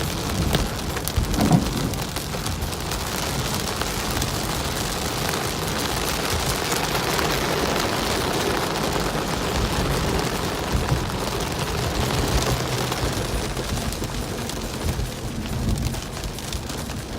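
Heavy rain pouring onto a car's windshield: a steady hiss of rain with a low rumble underneath.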